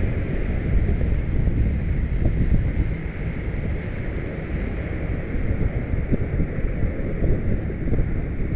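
Wind buffeting the microphone of a camera mounted on a kite buggy as it rides across a beach: a loud, unbroken low rumble.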